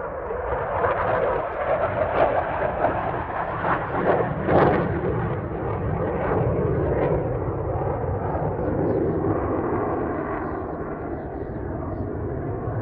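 Saab JAS 39 Gripen fighter jet's single turbofan engine passing overhead in a display flypast: a loud, rough jet roar with crackling over the first few seconds, then a steadier rumble that starts to fade near the end.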